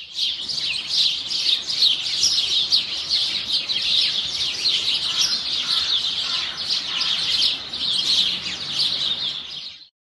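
A dense chorus of small songbirds, many quick high chirps and twitters overlapping. It fades in at the start and fades out just before the end.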